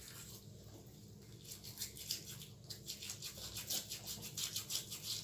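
Toothbrush scrubbing a dog's teeth: faint, quick scratchy brushing strokes, about three a second, starting after a second or so and growing louder toward the end.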